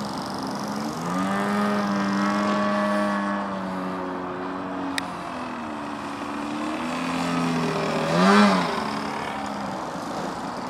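3W 56iB2 twin-cylinder two-stroke petrol engine and propeller of a large radio-control aerobatic plane in flight, the note rising and falling as the throttle changes. About eight seconds in it swells to its loudest with a quick rise and fall in pitch.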